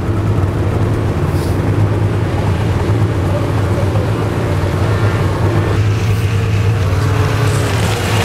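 Snowmobile engines running, a loud steady drone with no clear revving.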